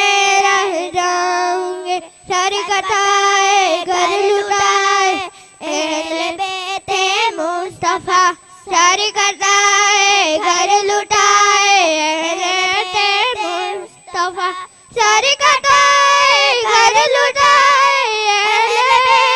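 Young girls singing a naat (Islamic devotional praise song) without instruments, a single melodic voice line in long phrases with short breath pauses, amplified through a microphone.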